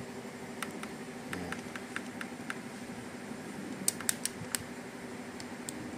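Scattered small ticks and crackles of thin plastic film as the backing liner is peeled from a clear panel protector and the film is pressed onto the motorcycle's instrument panel cover, with a quick cluster of sharper ticks about four seconds in. A steady low hum runs underneath.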